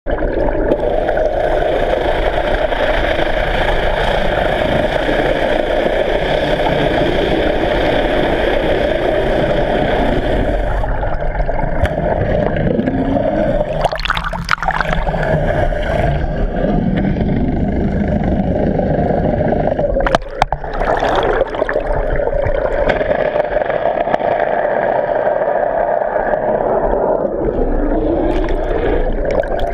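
Boat engines droning steadily, heard underwater through a GoPro housing, with the pitch sliding now and then. Water churns and splashes against the camera about halfway through and again a few seconds later, as the camera breaks the surface.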